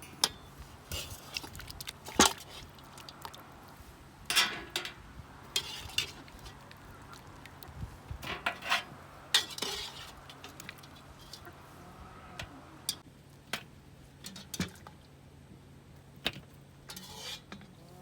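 Scattered clinks and knocks of dishes and utensils being handled, with geese honking now and then.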